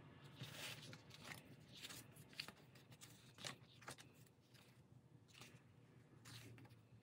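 Faint, scattered rustling and soft crinkles of paper as sticker-book sheets and planner pages are handled and a sticker page is turned.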